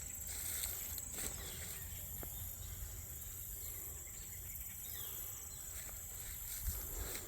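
Steady high-pitched chorus of field insects such as crickets, over a low rumble, with a few faint knocks, one near the end.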